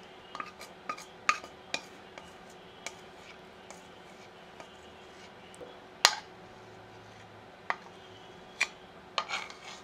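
Thin metal spatula tool scraping and tapping against a bowl while scooping out alcohol-dampened, clumped pressed powder: scattered light clicks and taps, the sharpest a little past the middle and a quick cluster near the end.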